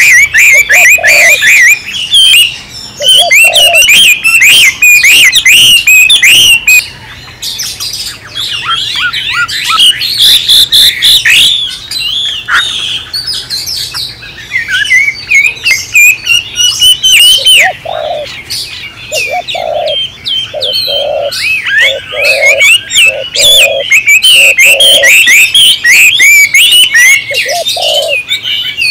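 Oriental magpie-robin singing a long, varied song of rapid whistles, trills and warbles, loud and close. Short low notes repeat through the second half.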